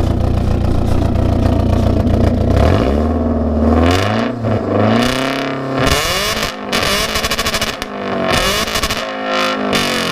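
BMW E36 318is four-cylinder engine idling, then blipped about half a dozen times from around three seconds in, its pitch rising and dropping back with each rev, through an exhaust with the rear muffler deleted. The sound is one the owner calls proper meaty.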